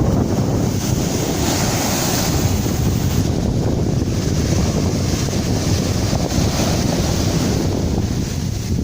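Sea waves washing in, with wind buffeting the microphone in a heavy low rumble; a wave's hiss swells about two seconds in.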